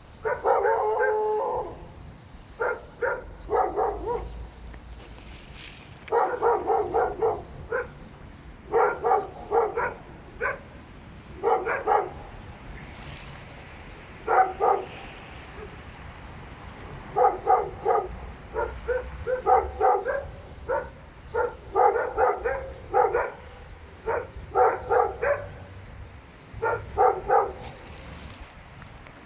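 Dogs barking in repeated bouts of several quick barks each, with pauses of a second or two between bouts.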